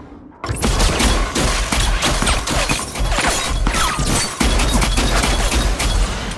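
Heavy automatic gunfire in a sustained fusillade, with bullets striking and cracking glass. It starts about half a second in and breaks briefly about four seconds in.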